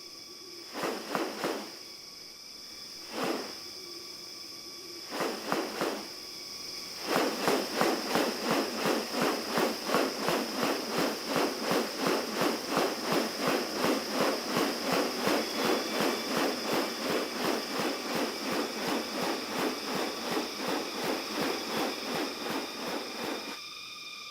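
Tropical rainforest ambience: a steady high-pitched insect drone, with a few separate short calls early on. About seven seconds in, a fast, even run of rasping pulses begins at roughly three a second and stops shortly before the end.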